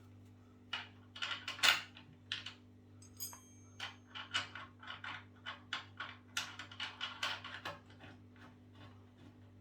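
Irregular metallic clicks and clinks of hand tools on the scooter's axle bolts and washers, with one short metallic ring about three seconds in.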